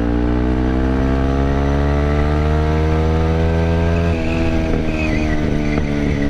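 Yamaha WR155's single-cylinder engine through a GP7 Max 4.1 aftermarket exhaust, revving up steadily for about four seconds. Then the throttle is shut and the exhaust gives an irregular 'tak tak tak' of pops and crackles on deceleration.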